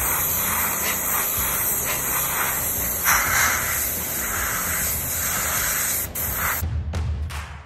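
Airbrush hissing steadily as it blows air and yellow paint onto a vinyl figure cape between coats, swelling slightly with each pass, then cutting off about a second before the end, followed by a few clicks.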